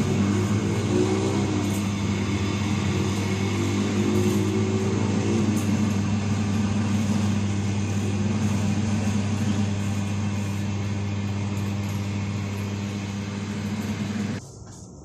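A steady machine-like hum with a constant low drone under a noisy hiss, cutting off suddenly near the end.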